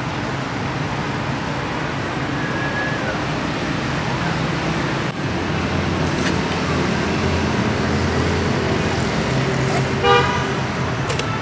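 Steady road traffic noise, with a short vehicle horn toot near the end.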